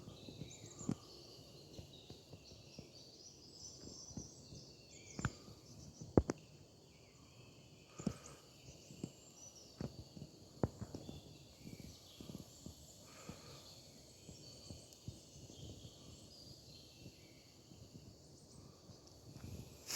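Quiet outdoor woodland ambience with faint, scattered bird calls. A few sharp clicks or knocks stand out, the loudest about six seconds in.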